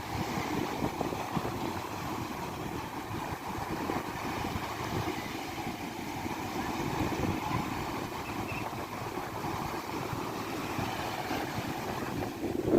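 Sea waves breaking and washing on the shore, with wind buffeting the microphone: a steady noise, mostly low.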